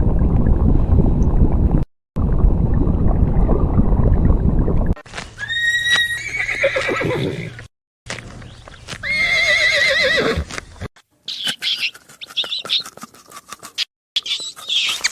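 Horse whinnying twice, each a high, quavering call that falls in pitch. Before the whinnies comes a loud low rumbling noise, and near the end there are quick clicks and short higher chirps.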